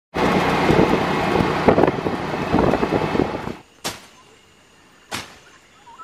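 Loud, rattling engine, road and wind noise heard while riding in a small open-sided motor vehicle on a dirt road. It cuts off abruptly about three and a half seconds in, leaving a quiet background broken by two sharp clicks.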